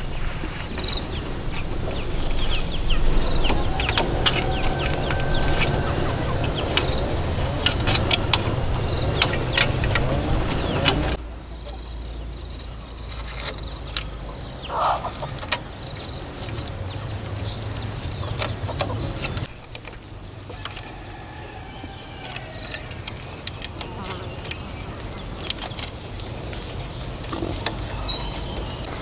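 Bamboo poles and slats knocking, clicking and scraping as they are handled and tied into a trellis frame, over a steady chorus of insects. The background drops abruptly about a third of the way in and again about two-thirds in.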